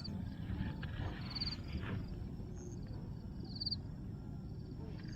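Outdoor ambience by the water: short, high, pulsed trills from a small animal repeat about every two seconds over a low steady rumble.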